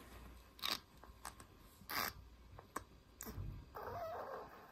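Tiny kitten, about 24 days old, hissing in a few short bursts, then giving a longer raspy cry near the end, while it is held down for an injection.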